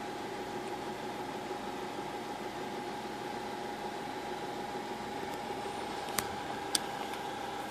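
Steady mechanical hum over a faint hiss, with two sharp clicks a little after six seconds in.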